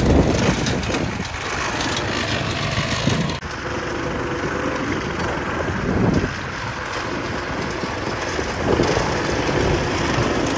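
Newly installed replacement small single-cylinder Harbor Freight engine running on a go-kart as it drives off, the sound changing abruptly about three seconds in.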